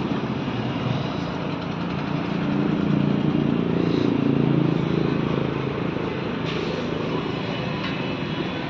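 An engine running steadily, growing louder in the middle and then easing off.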